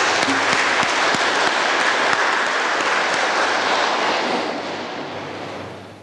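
Audience applauding, a dense patter of hand claps that tapers off over the last second or two.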